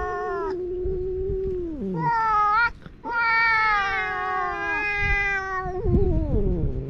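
Cats yowling at each other in a standoff at the start of a fight: long, drawn-out wails, one sliding down in pitch about two seconds in, a short rising call, then another long wail that falls away near the end.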